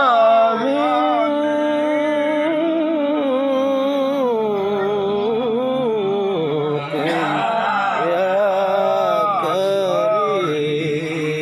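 A man chanting an Arabic prayer recitation in a slow melodic style, drawing out long held notes that bend and waver in pitch. Near the end he settles on a lower, steady note.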